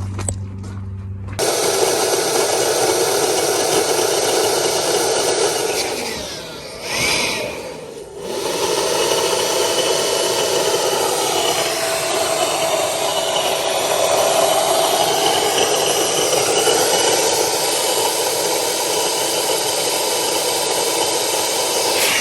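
A loud motor-driven tool running steadily with a rushing, grinding noise. It eases off briefly about six seconds in, then runs on again.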